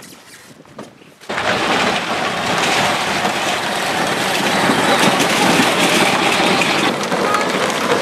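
Battery-powered ride-on toy truck setting off about a second in and driving on a dirt-and-gravel driveway, towing a metal mesh wagon: a loud, steady, rough rolling noise of hard plastic wheels on the ground.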